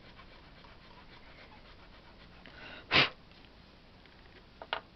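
One short, sharp breath close to the microphone about three seconds in, over a faint steady background. Two light taps follow near the end.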